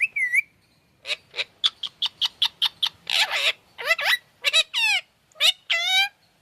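Pet parrot calling. A quick run of short chirps comes first, then a harsh squawk about three seconds in, then several whistled calls that sweep up and down in pitch.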